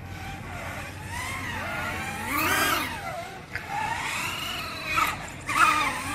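Racing quadcopter's four brushless 2205 2300KV motors driving 5-inch four-blade props, a whine that rises and falls in pitch as the throttle changes. The loudest surge comes about two and a half seconds in, with shorter surges near the end.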